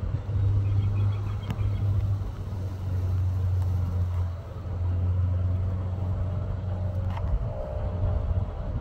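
Steady low engine hum that drops slightly in pitch about halfway through, with a faint higher whine joining near the end.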